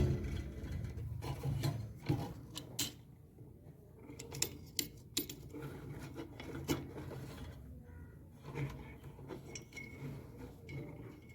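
Scattered sharp clicks, taps and scraping from hands working with small parts and tools, over a low hum.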